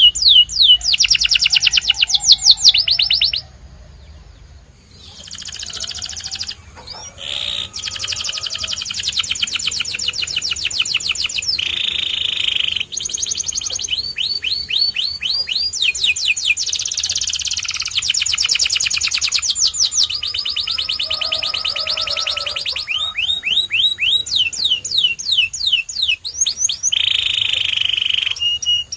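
A white canary singing: phrase after phrase of fast, high trills of rapidly repeated notes, mixed with a few held buzzy rolls, with a brief pause about four seconds in.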